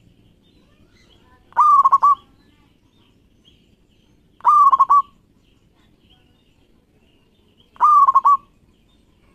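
Zebra dove (local perkutut) cooing its call three times, about three seconds apart. Each call is a short run of quick notes around one pitch.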